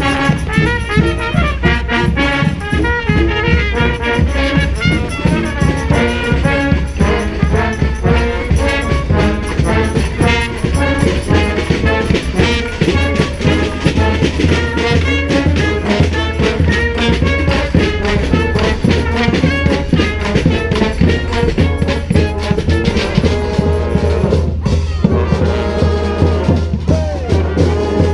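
Brass band playing a New Orleans-style brass-band tune: trumpets and trombones over a steady drum beat. About three-quarters through the band breaks off briefly, then comes back in on long held horn notes.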